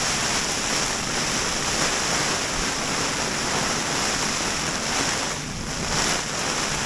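Strong wind and rain buffeting an REI Half Dome 2 Plus nylon dome tent, heard from inside: a steady, loud rushing that eases slightly about five and a half seconds in. The gusts are heavy enough to bend the tent's poles.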